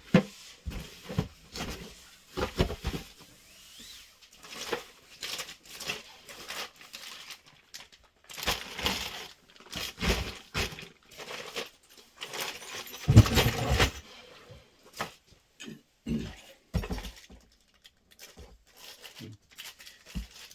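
Irregular rustling, tearing and knocking of packaging and parts being handled and unpacked, with the loudest knock about thirteen seconds in.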